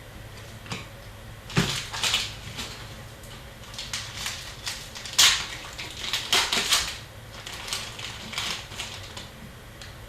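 Upper Deck hockey card packs and cards being handled: irregular crinkles of foil wrappers and clicks and slides of cards being flipped through, loudest about halfway in.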